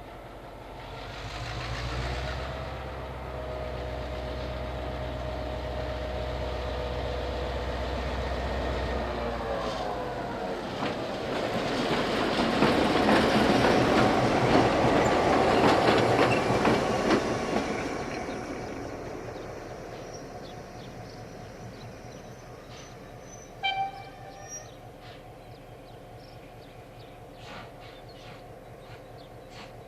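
A train passing close by: a steady low hum builds, then wheels clatter over the rail joints, loudest for several seconds before fading away.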